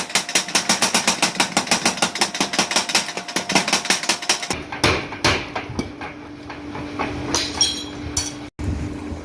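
A 100 kg mechanical power hammer forging hot steel, striking fast and even at about seven blows a second. The blows stop about halfway through, leaving a steady machine hum with a few scattered knocks.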